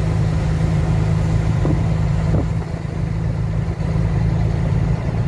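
Truck engine running steadily while driving, heard from inside the cab as a constant low drone with road noise.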